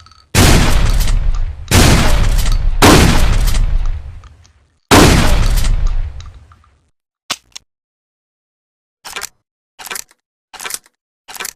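Trench shotgun firing four loud shots, each with a long echoing fade, followed by five short sharp clacks of the gun's action being worked.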